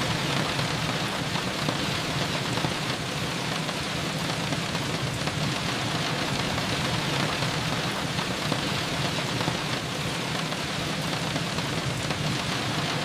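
Steady rain falling and pattering on surfaces, an even hiss with a low rumble beneath it.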